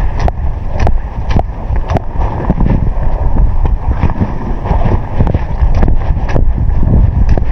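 Strong wind buffeting the microphone in a loud low rumble, with sharp clicks or taps about twice a second.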